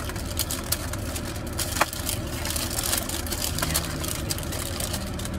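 Paper food wrapper crinkling and rustling in the hands as it is unfolded, with a sharper crackle about two seconds in. Under it runs the low, steady hum of the car idling.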